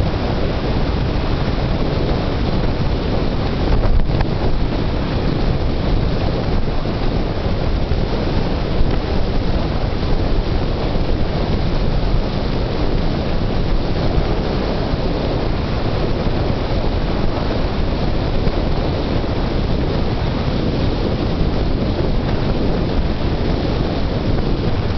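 Wind rushing over a camera microphone held out the open window of a car moving at about 45 mph: a steady, loud, dense rush that barely changes.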